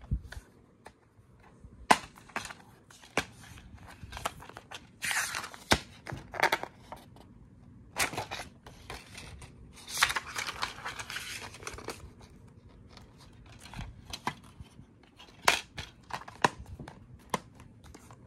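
A plastic DVD case being handled, opened and shut: a series of sharp clicks and snaps, with two longer stretches of rustling and scraping.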